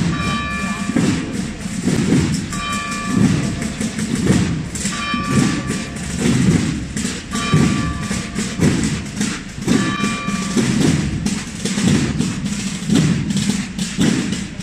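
Processional drum and tarota band playing a slow march: drums beating a steady rhythm, with the tarotas, the shawm-like wind instruments of Tarragona's Holy Week bands, sounding a short held note every two to three seconds.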